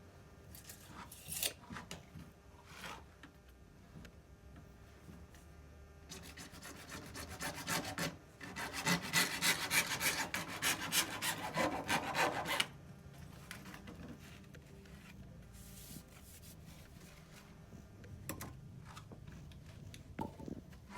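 A hand tool rasping back and forth in quick strokes, about three a second, for several seconds in the middle, then stopping suddenly. Light knocks of handling come before and after.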